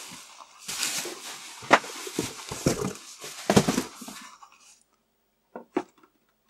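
Bubble wrap and plastic packaging rustling and crinkling as a heavy hard drive is lifted out of a cardboard box. This lasts about four seconds, then a couple of short knocks near the end as the drive's metal chassis is set down on a table.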